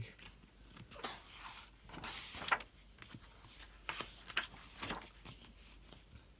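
Pages of a paperback picture book being turned by hand: a paper rustle and swish, followed by a few soft taps of the pages and cover settling.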